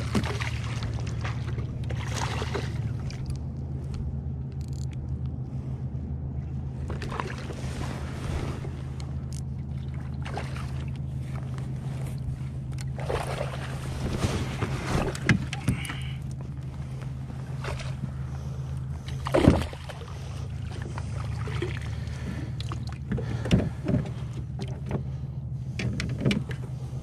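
A boat motor runs with a steady low hum on the water. Scattered short knocks and splashes come from the kayak and water, the sharpest about two thirds of the way through.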